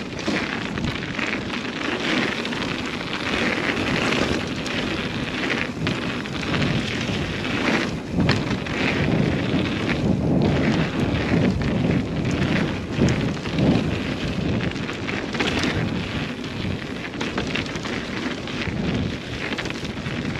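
Mountain bike ridden over a rough trail, recorded on a GoPro Hero 9: tyres rolling and the bike rattling, with many small knocks, under a continuous rush of wind across the camera microphone.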